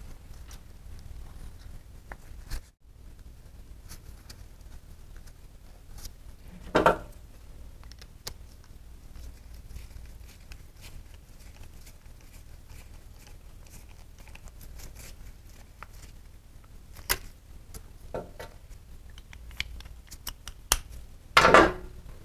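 Scattered light clicks and knocks of things being handled, over a low steady hum. There are two louder brief rustling bursts, one about seven seconds in and one near the end.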